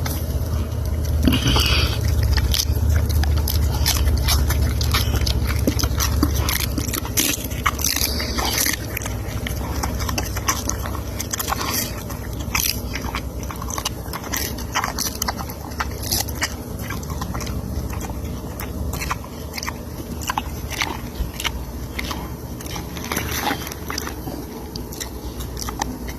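Mini pig snoring: a steady low rumble with many small clicks and crackles from its mouth and nose.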